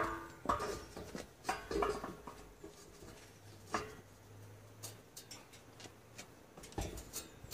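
Scattered knocks and light clatter of a wooden board being handled against the stopped blade and steel frame of a homemade table saw, with one sharper knock at the start. The saw is not running.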